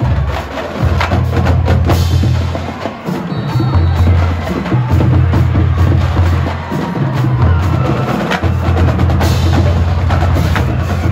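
Marching drumline playing a cadence: snare and tenor drums struck rapidly over bass drum notes that start and stop in blocks of a second or more.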